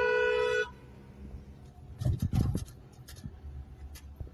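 Car horn honking in one steady blast of about two-thirds of a second, a signal to the driver ahead, heard from inside the car. About two seconds later comes a short burst of noise as loud as the horn.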